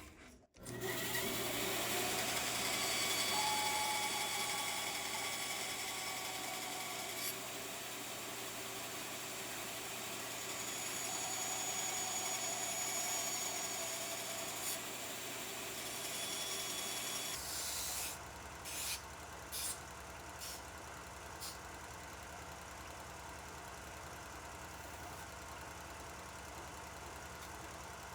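A power tool running steadily while notches are cut, its pitch wavering slightly under load. About seventeen seconds in the sound changes to a quieter, lower hum, with a few sharp clicks just after.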